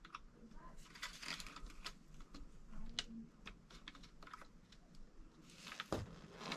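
Light, irregular clicks and taps of small plastic RC servo parts being handled and pushed by hand, with a firmer knock near the end.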